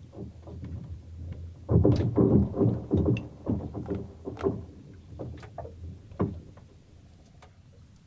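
Lake ice cracking and shifting in the spring thaw: a burst of deep rumbling cracks mixed with sharp, high ringing pings about two seconds in, then scattered single pops that thin out toward the end.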